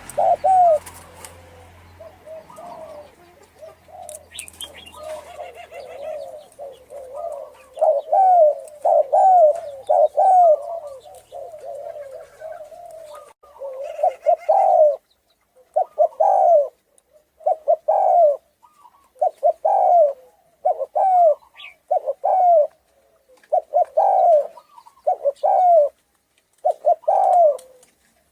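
Thai-bred spotted dove with a hoarse voice, cooing over and over as a lure call to provoke other doves. The low coos are dense and overlapping at first, then come in short groups of two or three notes about once a second.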